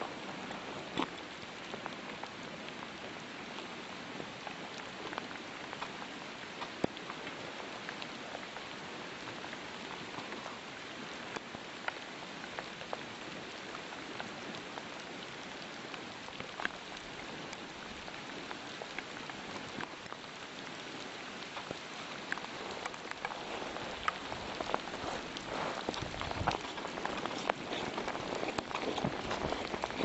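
Steady rain falling, with scattered drops ticking close by that become more frequent and louder in the last several seconds.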